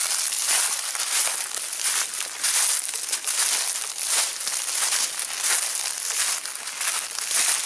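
Footsteps crunching through deep dry fallen leaves at a steady walking pace.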